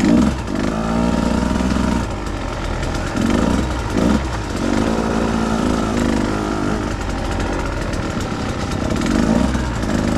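Two-stroke engine of a Husqvarna TE150 dirt bike being ridden, revving up and down with the throttle, with two quick throttle blips about three and four seconds in.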